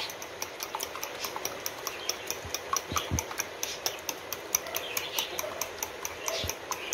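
Fork whisking beaten eggs in a glass bowl: a rapid, even clinking of the fork against the glass, about four or five strokes a second.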